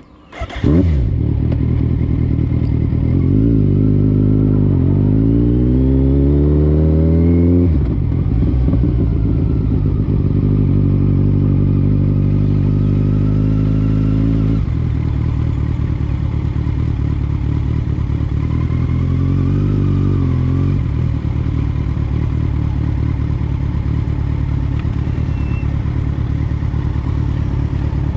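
Vehicle engine pulling away: its pitch climbs for a few seconds, drops suddenly at a gear change about eight seconds in, then runs fairly steadily with one more short rise later on.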